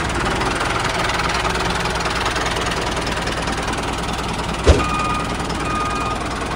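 Tractor engine running steadily, with one sharp knock about four and a half seconds in. After the knock, an on-off reversing-alarm beep starts, at two steady pitches.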